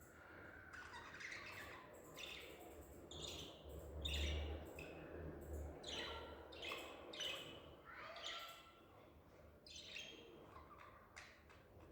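Budgerigar chattering and warbling: a rapid run of short chirps and squawky notes with no pause between them, with a low hum underneath that is loudest about four seconds in.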